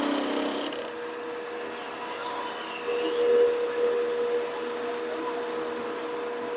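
Wood lathe running with a steady motor whine as it spins a walnut blank. The noise of the tool cutting fades out within the first second, leaving the lathe spinning with no cut.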